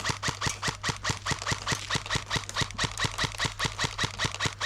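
Rapid, evenly spaced clicks, about six or seven a second, keeping a steady rhythm without a break.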